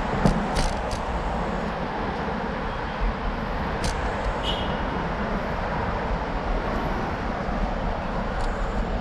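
Steady outdoor road noise of passing traffic with rumble on the microphone, and a few sharp clicks in the first second and again about four seconds in.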